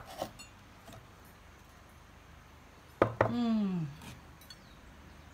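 Glazed ceramic mugs knocked down onto a board: a sharp knock at the start with a few faint clinks after it, then another knock about three seconds in. The second knock is followed by a woman's short vocal sound falling in pitch.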